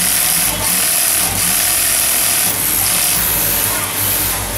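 High-head (post-type) wig sewing machine running at speed, stitching hair wefts onto a wig cap, in runs of one to two seconds with brief pauses between them.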